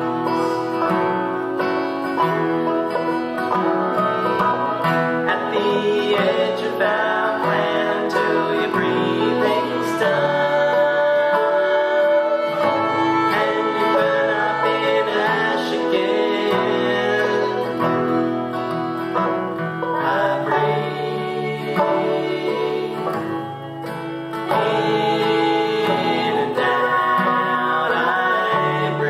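Old-time string band playing live: fiddle, banjo and two acoustic guitars. The playing dips briefly a little after twenty seconds in, then comes back up.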